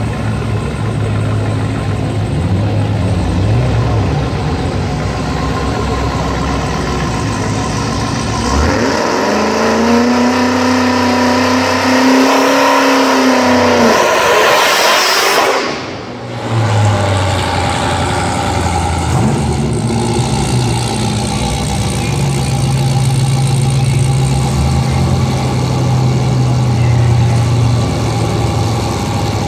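Drag-race car engines idling at the start line. About nine seconds in, an engine is brought up to high revs and held for several seconds, climbing further and louder before the sound cuts off sharply. Afterwards engines idle steadily again, with a short rev a few seconds later.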